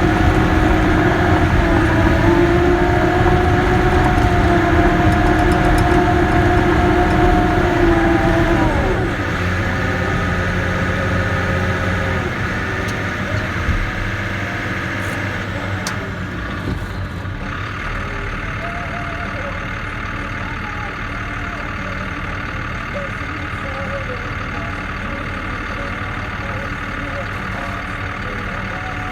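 Cat D6K bulldozer's diesel engine running hard with a steady whine. About nine seconds in, the whine drops in pitch and fades as the engine revs down. The machine then runs on steadily and more quietly.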